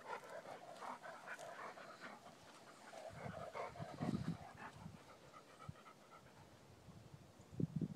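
Faint panting and short breathy sounds from a chocolate Labrador and a small puppy play-fighting, with a few low bumps about three to four seconds in; it dies away after about five seconds.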